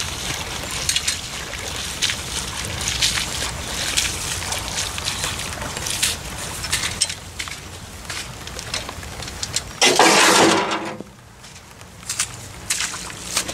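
Boots sloshing and splashing through ankle-deep floodwater and waterlogged grass in uneven steps, over a steady low rumble. About ten seconds in comes a loud, noisy rustle lasting about a second.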